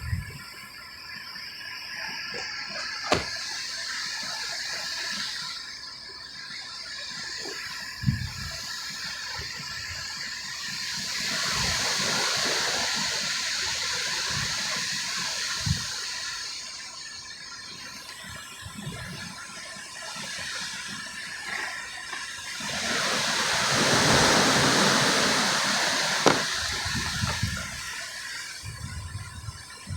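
Heavy wind-driven rain rushing steadily, swelling into two loud gusts about a third and three quarters of the way through, with scattered short thumps.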